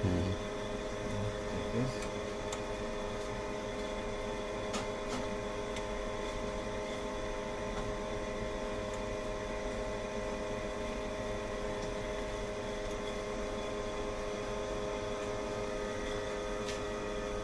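Steady electrical hum with several held tones from the powered-up converter test setup, with a couple of faint clicks.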